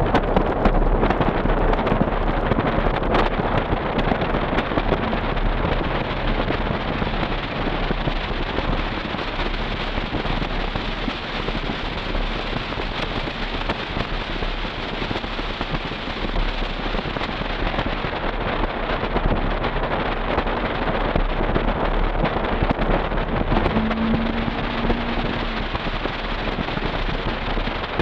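2000 Toyota 4Runner on the move with a Flowmaster Super 40 exhaust: a steady drone of engine, exhaust and road noise, with wind noise on the microphone.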